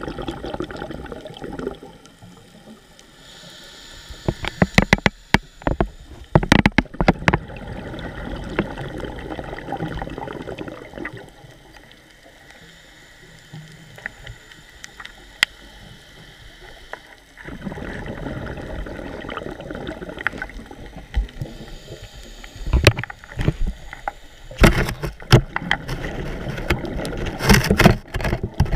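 Scuba diver's regulator breathing heard underwater, with stretches of steady hiss and clusters of crackling exhaled bubbles. The bubbles are loudest about five seconds in and again near the end.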